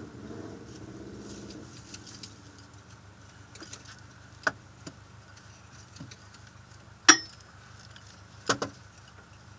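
Rally car engine idling steadily, heard from inside the cabin, with a few sharp clicks and knocks from in the car; the loudest click comes about seven seconds in, followed by a double one about a second and a half later.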